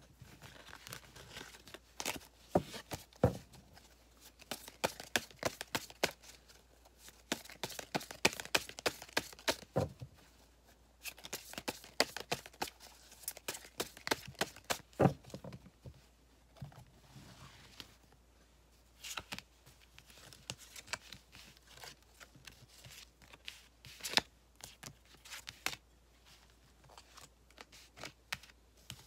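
A deck of stiff paper tarot cards shuffled and handled on a velvet cloth: a dense run of sharp papery snaps and rustles through the first half, then a short lull and sparser snaps and slides as the cards are spread out.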